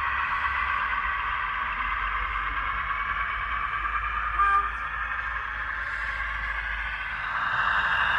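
Model Class 15 diesel locomotive's sound decoder playing recorded Class 15 engine sound through its small speaker: the engine running steadily, a short horn toot about four and a half seconds in, and the engine note rising and getting louder near the end.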